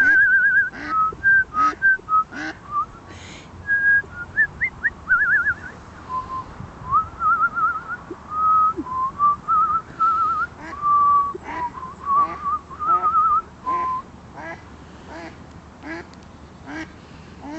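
Short quacking calls from ducks, mixed with runs of wavering, trilled whistled notes that rise and fall in pitch.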